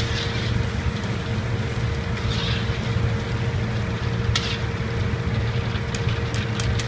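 Steady rumble of a commercial wok range and its exhaust hood, with faint sizzling from a wok of hot oil. A few light metal clinks, from a ladle against a wire strainer, come about four seconds in and again near the end.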